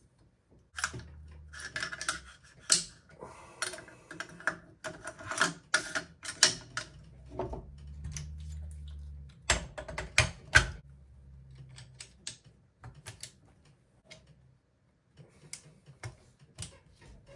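Metal parts of a Lockhart Tactical Raven 5.56 rifle clicking and clacking as it is reassembled by hand, in many separate small clicks with a cluster of louder clacks about ten seconds in.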